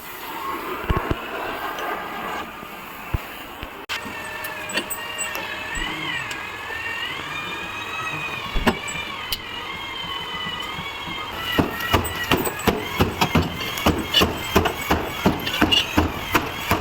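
Hammer blows on a car's sheet-metal body during dent straightening, a few scattered knocks at first and then a fast run of sharp strikes, about three or four a second, over the last five seconds. A wavering high tone runs underneath through the middle part.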